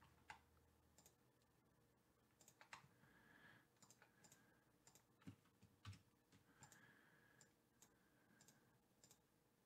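Near silence with scattered faint clicks of a computer mouse and keyboard, about a dozen over the stretch, with a couple of slightly louder knocks a little past halfway.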